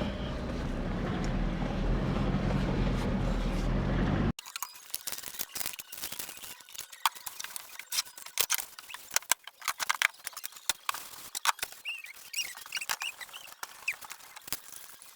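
Car engine running as the car pulls away, growing a little louder. About four seconds in it cuts off abruptly, giving way to scattered sharp clicks and a few faint high chirps.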